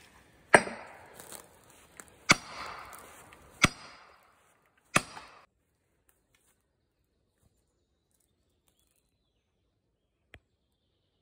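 Four sledgehammer blows about a second and a half apart, each a sharp crack with a brief ring, used to force a stubborn tree over after the chainsaw cut. Then near silence, with one faint click near the end.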